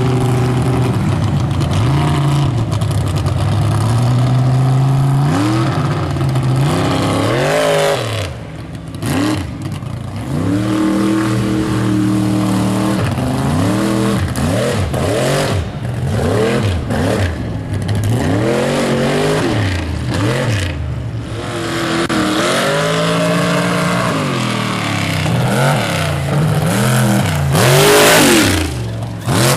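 Mega mud truck's big engine revving hard as it churns through a mud pit, its pitch climbing and falling over and over as the throttle is worked. Near the end a loud rush comes as the truck passes close.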